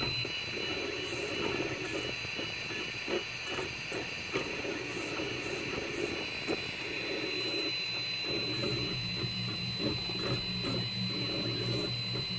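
Anet A3 3D printer running the last layers of a print. A steady high whine runs under its motors, which buzz in short, irregular bursts as the print head moves, with a few light clicks.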